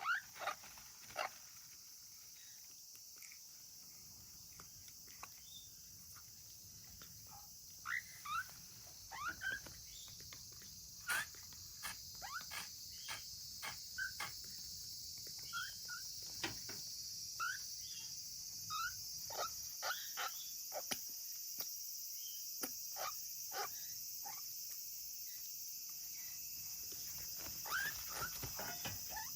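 African grey parrot chick calling in short, high chirps and squeaky whistles, one after another at irregular intervals, which the breeder hears as a lone chick crying for company. A steady high hiss runs underneath.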